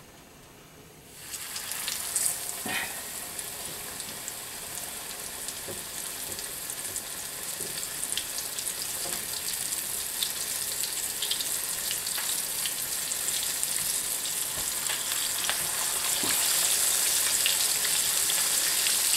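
Flour-dredged pork chops frying in hot oil in a cast-iron skillet: the sizzle starts about a second in as the first chop goes into the pan and grows louder as a second chop is added, with scattered pops and crackles.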